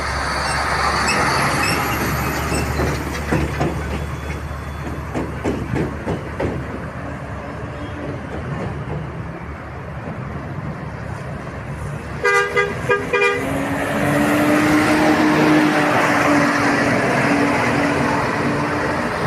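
Bus horn: a quick run of short toots about twelve seconds in, then a long steady blast held to the end. Road traffic and engine noise run underneath.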